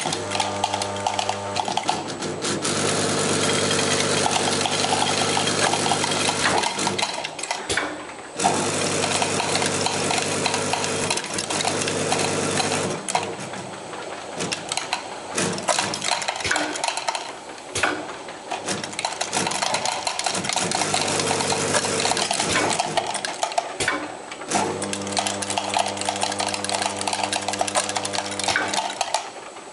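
King TB4 tablet counter running: a steady machine hum under a continuous rattle of tablets clattering along the feed tracks and dropping into plastic bottles. The hum stops for a long stretch in the middle and comes back near the end, while the rattle carries on.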